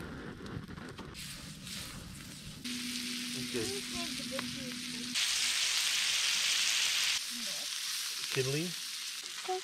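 Bacon-wrapped chicken and beef shish kebabs sizzling in a pan over campfire coals. The sizzle grows louder a few seconds in.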